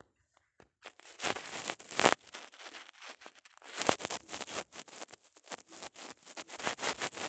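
Irregular scraping and rubbing noises in uneven bursts from a fingertip dragging across a phone's touchscreen while erasing, picked up by the phone's own microphone; the loudest scrapes come about a second in and again near four seconds.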